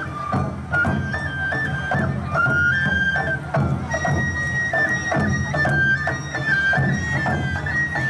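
Awa Odori festival music: a shinobue bamboo flute plays a stepping melody over a steady beat of drums and percussion.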